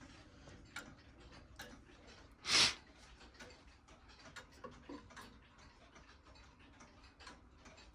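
Early Mauthe German grandfather clock ticking steadily, its escapement giving sharp ticks a little under one a second. A short rush of noise about two and a half seconds in is the loudest sound.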